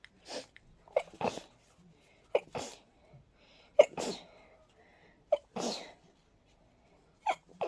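A person with a stuffy, cold-sensitive nose sneezing in a rapid fit. There are five sneezes about a second and a half apart, each a sharp catch followed by a noisy burst.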